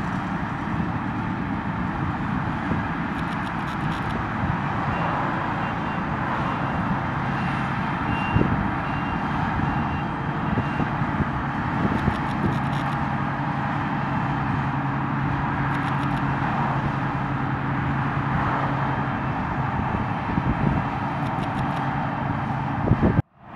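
Harvest machinery running steadily, an engine drone with a held low hum; the sound cuts out abruptly for a moment near the end.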